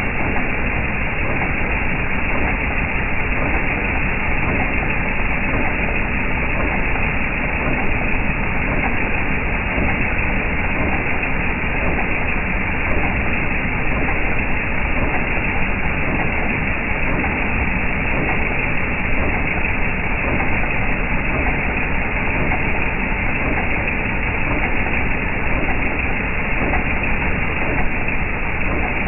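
Jeep Wrangler TJ's 4.0-litre inline-six engine running steadily, the engine that has a knocking noise of unknown cause.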